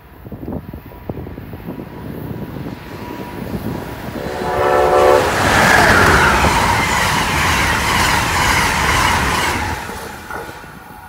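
Amtrak Northeast Regional train sounding one short horn blast of about a second as it nears, then rushing past at speed. The roar of the cars and wheels on the rails swells to its loudest and fades away as the train recedes.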